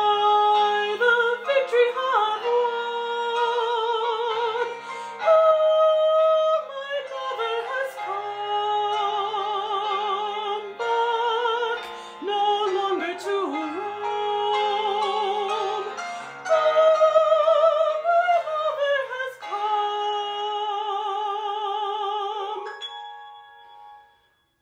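A soprano voice singing the first soprano part of a choral piece with wide vibrato, over softer, lower held notes. The music fades out near the end.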